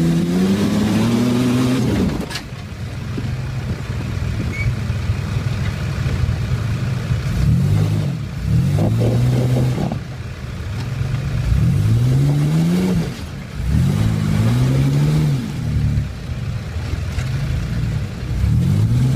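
A 4x4's engine revving hard again and again, each rev rising in pitch and then dropping off, as it struggles to climb a dirt hill. A single sharp knock about two seconds in.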